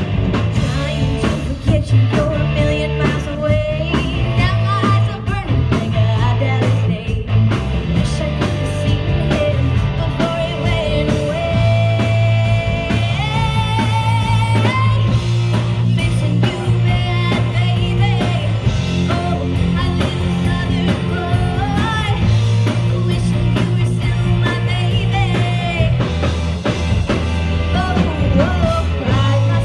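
Live rock band playing: a woman singing lead over electric guitars, bass guitar and a drum kit, loud and continuous.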